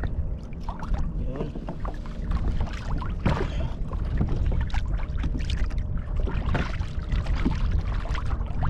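Fishing kayak on open water: a steady low wind rumble and water against the hull, with scattered knocks and clicks as a kahawai is handled on board and held over the side.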